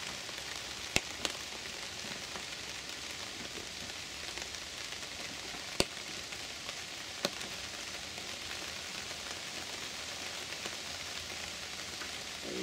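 Steady rain falling in woodland, a soft even hiss, with four sharp taps of single large drips.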